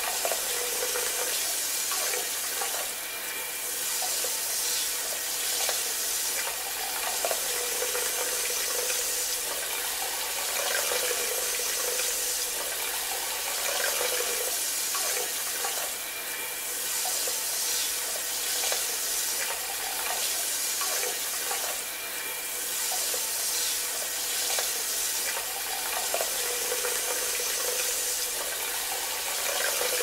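Handheld bidet sprayer jetting a steady stream of water into a toilet bowl: a continuous splashing rush that swells slightly every few seconds.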